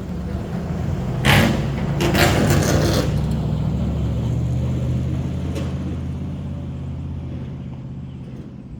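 A vehicle engine running steadily, with a loud rushing burst about one to three seconds in before it settles and slowly fades.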